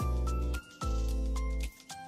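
Background music: pitched notes over a strong bass, in phrases about a second long with short breaks between them.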